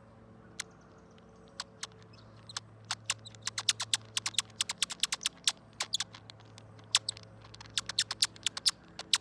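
Twist-type bird caller turned with heavy pressure, giving a string of short, sharp squeaky chirps. A few come one by one at first, then they run together quickly and irregularly from about two and a half seconds in.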